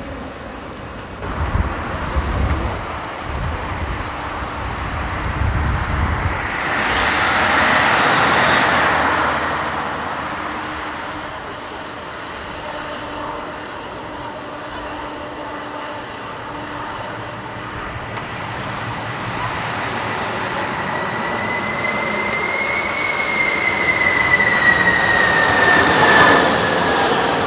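Jet engines of a Boeing 747 freighter: a rushing swell that peaks about eight seconds in and fades, then a high engine whine that grows louder toward the end. Low buffeting of strong wind on the microphone in the first few seconds.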